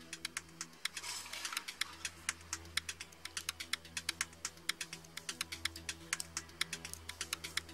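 Light clicks and ticks of thin laser-cut sheet-metal model kit parts being handled and fitted together, several a second and irregular, over soft background music.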